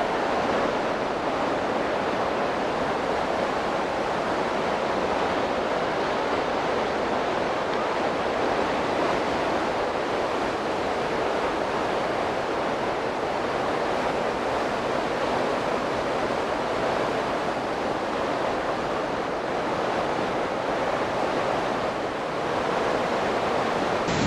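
Webuye Falls on the Nzoia River: the steady, even rumble of a large waterfall's falling water.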